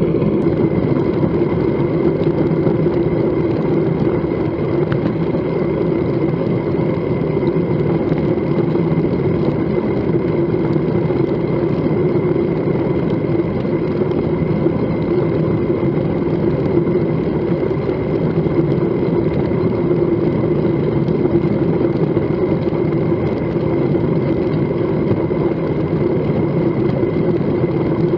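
Steady wind rumble and tyre-on-asphalt road noise picked up by an action camera on a bicycle riding at about 28 km/h.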